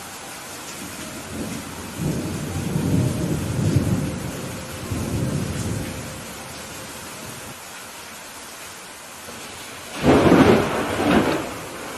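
Steady rain falling through a thunderstorm. About two seconds in, a low rolling rumble of thunder swells for a few seconds and fades. Near the end a louder, sharper thunderclap cracks.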